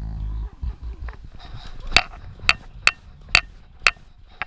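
A pug snuffling close to a back-mounted camera, then about five sharp clicks roughly half a second apart as she moves.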